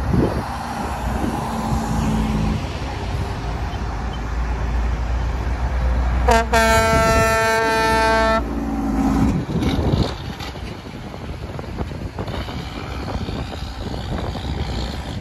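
Diesel engines of passing semi trucks rumbling, with a truck air horn blown about six seconds in: a couple of quick toots, then one held blast of about two seconds. The engine rumble fades after about ten seconds.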